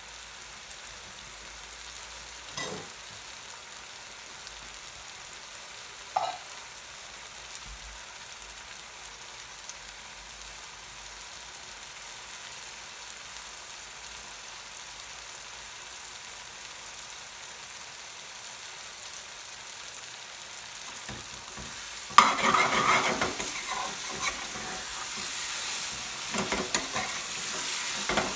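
Thick curry sauce sizzling in an aluminium pan over a high gas flame, with two brief pops early on. About 22 seconds in, a metal spoon begins stirring and scraping the pan, and the sizzling grows louder and busier.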